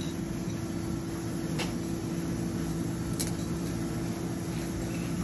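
Steady hum of room ventilation or refrigeration with a constant low drone, and two light clicks, about a second and a half and about three seconds in.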